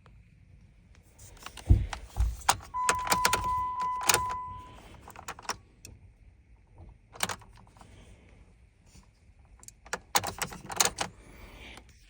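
A bunch of car keys jangling and clicking in two bouts, with a steady electronic beep lasting about two seconds during the first.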